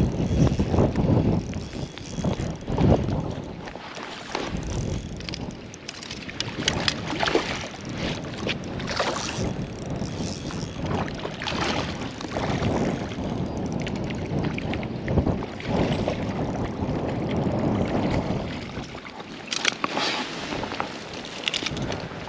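Wind buffeting the microphone in gusts, a loud uneven rumble that swells and fades, with a few short clicks and rustles of handling.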